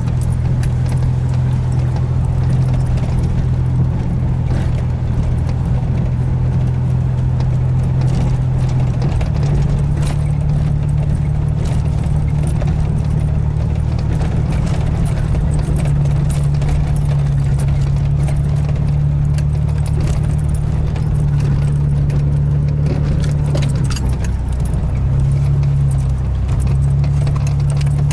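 Chevrolet S-10 Blazer engine and drivetrain running from inside the cab while driving slowly on a rough dirt road, a steady low hum that steps up in pitch about nine seconds in and shifts again near the end. Loose interior items clink and rattle over the bumps throughout.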